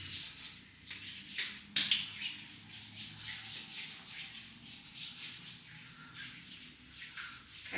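Hands rubbing lotion into the skin of the forearms and elbows: repeated rubbing strokes of palm over skin, one sharper about two seconds in.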